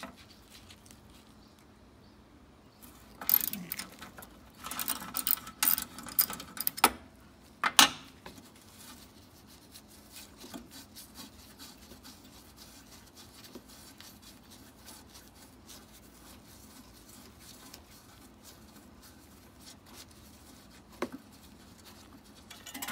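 Hand tools clicking and rattling on metal while the top mounting bolt of a power steering cooler is undone. A dense cluster of clinks a few seconds in ends in one sharp clink, followed by a long run of faint light ticks.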